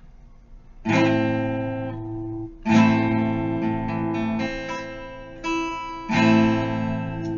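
An A minor chord strummed on guitar three times, each strum left to ring and fade.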